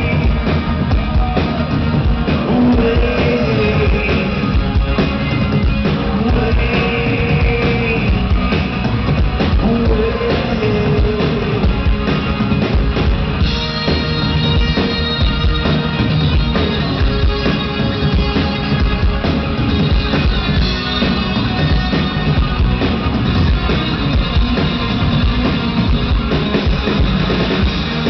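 Rock music instrumental break with no singing: a band with drum kit and electric guitar playing a melodic lead, with a brighter high sustained layer coming in about halfway through.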